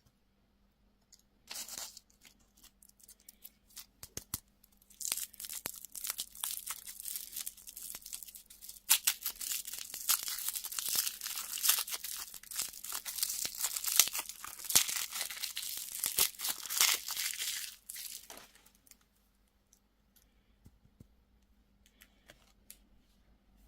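Candy or toy packaging being torn open and crinkled by hand: a short rustle about two seconds in, then a long stretch of crackling, tearing crinkles that stops a few seconds before the end.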